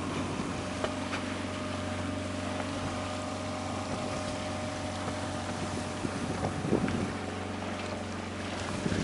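Columbia 38 sailboat's inboard auxiliary engine running steadily at an even drone, with wind and water noise along the hull.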